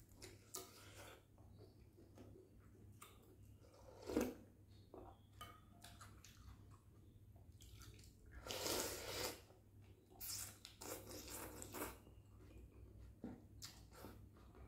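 Close-miked eating of rice noodle soup: wet chewing and small mouth clicks. A sharp click comes about four seconds in, and a longer noisy slurp of noodles comes around eight to nine seconds in.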